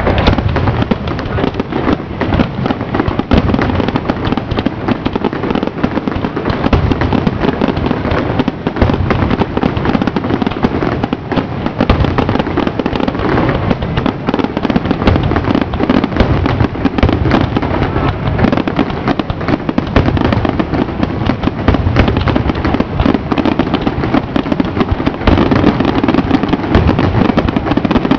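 Fireworks display in a dense, continuous barrage: many aerial shell bursts overlapping one another with no break.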